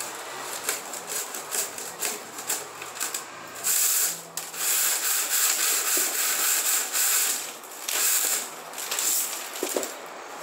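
Synthetic weaving strip being pulled by hand through the strands of a woven chair seat, rubbing and scraping against them in repeated hissing pulls, with one long pull of about three seconds near the middle.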